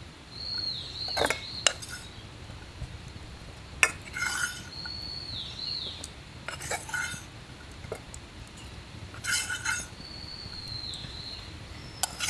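Metal utensil clinking and scraping against metal camp cookware: a handful of separate clinks a few seconds apart.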